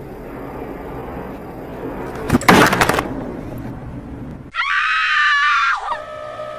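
A sudden loud crash, like something breaking or falling, about two and a half seconds in. Then a shrill, wavering scream lasting over a second that cuts off sharply.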